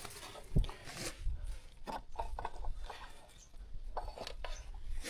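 A hiker moving along a steep mountain trail: irregular rustling, scraping and knocking of feet, gear and vegetation, with a dull thump about half a second in.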